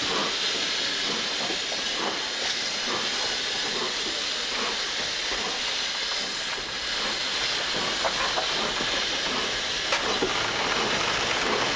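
LNER Peppercorn A1 Pacific steam locomotive 60163 Tornado rolling slowly past, with a steady hiss of escaping steam from low at its front end. There are a few light knocks late on.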